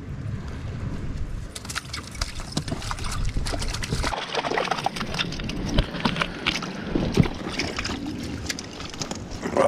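Wind buffeting the microphone for about the first four seconds, over sea water sloshing against shore rocks. From about a second and a half in come many short clicks and scrapes as a hooked mackerel is brought in and landed on the rock.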